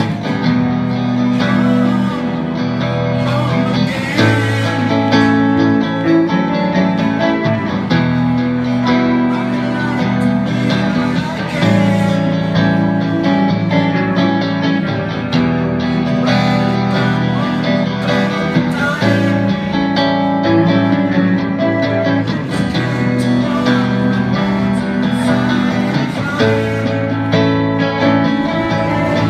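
Guitar music, with chords held and changed every second or two over a steady low line.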